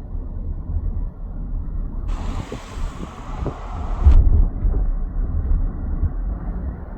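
Low, uneven rumble of wind buffeting the microphone, with a vehicle or machinery hum underneath; it swells a little just after four seconds in.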